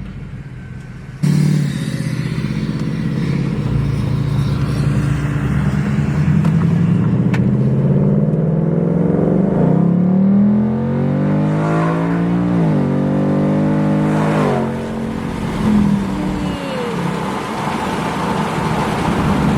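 Ford Mustang GT's Coyote 5.0 V8 engine running as the car is driven, with its pitch climbing twice in the middle as it accelerates and dropping suddenly after the second climb, then settling to a steady cruise.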